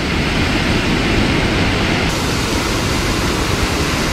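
Floodwater pouring through a dam's open spillway gates: a steady rushing noise. About two seconds in it changes abruptly and turns brighter and hissier.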